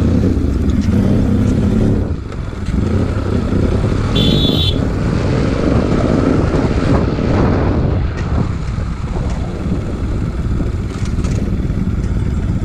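Bajaj Pulsar NS200's single-cylinder engine running as the motorcycle is ridden, with wind rumble on the handlebar-mounted microphone. A brief high-pitched beep sounds about four seconds in.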